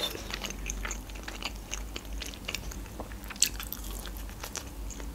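Close-miked mouth sounds of a person eating: chewing and biting into a slice of meat pizza, with many small, sharp wet clicks.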